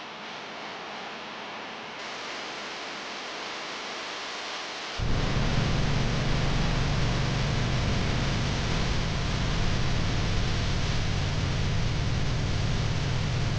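Wind rushing over the microphone: a steady hiss that about five seconds in turns suddenly into loud, heavy low buffeting that carries on.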